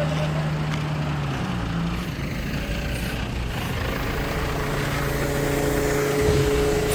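Diesel engine of a heavy construction machine running steadily, with a steady whine joining about five seconds in.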